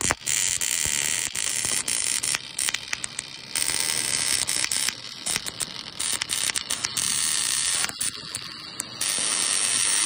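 The welding arc of an automatic MIG seam welder crackles and buzzes as the torch welds a seam of corrugated sheet. It runs with a few brief dips in level.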